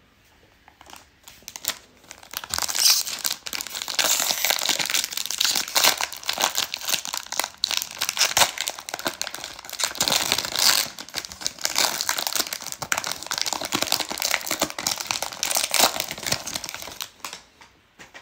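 Foil wrapper of a baseball card pack being torn open and crinkled in the hands: a dense, irregular crackling rustle that builds about two seconds in and stops shortly before the end.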